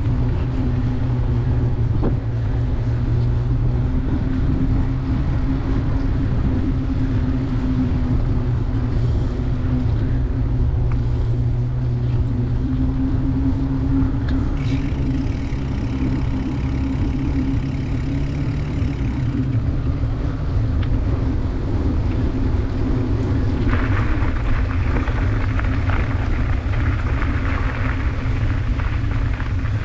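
Bicycle tyres humming steadily on pavement under heavy wind rumble on an action camera's microphone while riding. Near the end the tyres roll onto gravel and a crunching hiss joins the hum.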